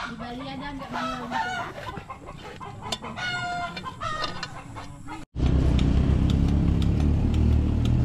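Chickens clucking and a rooster crowing. About five seconds in, the sound cuts abruptly to a loud, steady low rumble.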